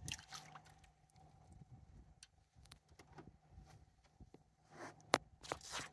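Faint scattered clicks and knocks of rod and spinning-reel handling as a small fish, a mangrove snapper, is reeled in and lifted from the water, with a couple of short rustling bursts near the end. A faint steady hum sits underneath.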